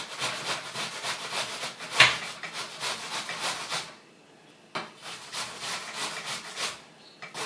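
An apple being grated on a metal box grater: quick rasping strokes, several a second, with a single sharp knock about two seconds in. The strokes pause briefly around four seconds in, then pick up again.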